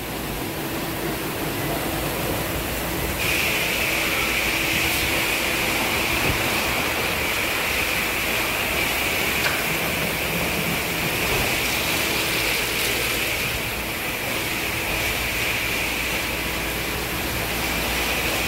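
Belanger/MacNeil car wash tunnel equipment running: water spraying and cloth brushes spinning against a car, a steady rushing noise with a faint hum. A brighter hiss sets in about three seconds in.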